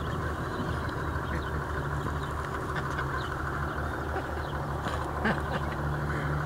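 A motor vehicle engine running at a steady idle, with a low pulsing rumble and a steady hum.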